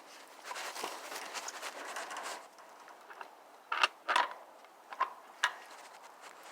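Crunching footsteps on dry ground, then four sharp knocks or clicks over the next couple of seconds, the second the loudest.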